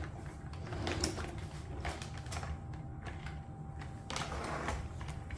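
Hard plastic parts of a Dyson Ball Animal 2 upright vacuum being handled: scattered light clicks and knocks, with a short scraping stretch about four seconds in, over a faint low rumble.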